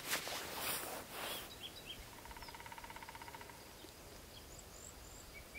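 A woodpecker drumming: one fast, even roll of knocks on wood lasting about a second, starting about two seconds in. Before it, wind gusts on the microphone, and a few faint high bird chirps follow near the end.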